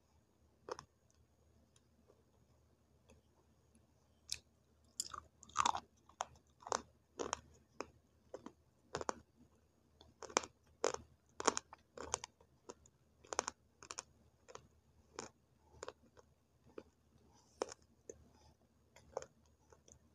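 Close-up crunching of dried multani mitti (Fuller's earth) clay sticks coated in wet clay paste being bitten and chewed. There is one crunch under a second in, then from about four seconds a steady run of crisp crunches, about two a second.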